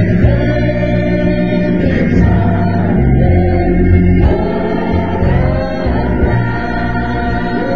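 Gospel choir singing with organ accompaniment, holding long sustained notes.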